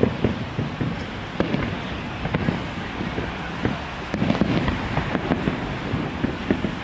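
Fireworks and firecrackers going off: a continuous, irregular crackle of many small pops and bangs, thickening about four seconds in.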